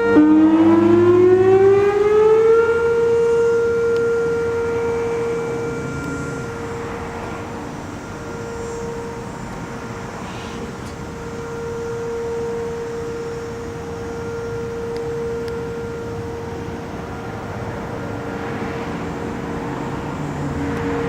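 Federal Signal 2001-130 outdoor warning siren sounding a scheduled test. Its pitch rises for about two seconds, then holds as a steady tone, with the loudness slowly swelling and fading as the siren rotates.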